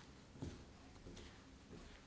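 Faint rustling and squishing of fingers rubbing butter and egg yolk into flour and sugar in a glass mixing bowl, with one soft low knock about half a second in.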